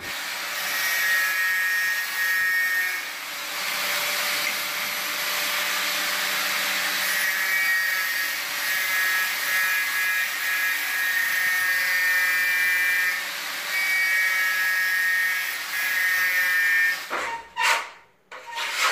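Angle grinder grinding the floor, scraping off old tile adhesive: a steady whining grind that eases off briefly twice and stops about a second before the end, followed by a few sharp knocks.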